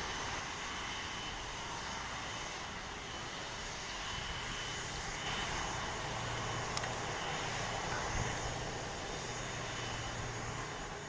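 Jet engines of an Airbus A330-200, Rolls-Royce Trent 700s, giving a steady rushing noise that swells a little with a low hum about halfway through.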